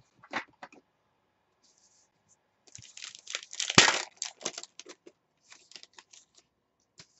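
A trading card pack wrapper being torn open by hand and crinkled, with the loudest rip a little under four seconds in, followed by lighter crinkling as the cards are handled.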